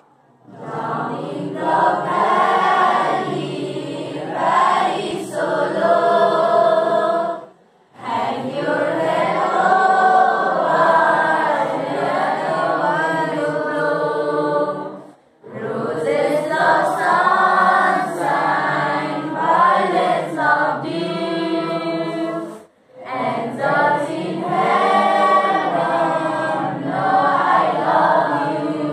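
A group of students singing together without instruments, in long phrases of about seven seconds, each followed by a brief pause for breath.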